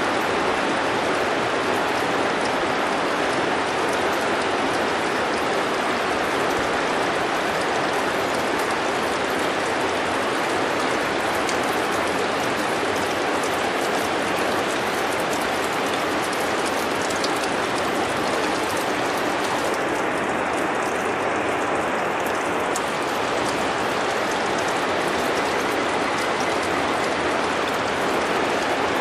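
Water dripping and trickling off a wet, moss-covered rock face: many drops pattering together as a steady wash of noise, with single drops ticking through it.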